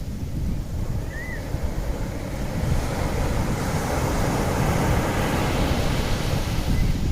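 Sea waves washing in: a rush of surf builds over several seconds and is loudest a little past the middle. Under it runs a steady low rumble of wind on the microphone.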